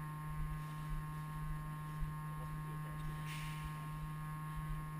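A steady low hum, even in pitch throughout, with a brief rustle about three seconds in.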